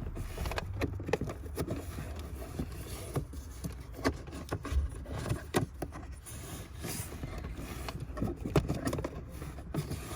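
Irregular scraping, rustling and clicking of a new cabin air filter being worked and slid into its plastic housing behind the glove box of a Mercedes-Benz W220.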